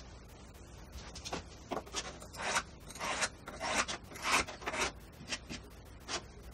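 A quick series of about a dozen short, rough scraping and rubbing strokes as leather pieces and small tools are handled on a wooden workbench.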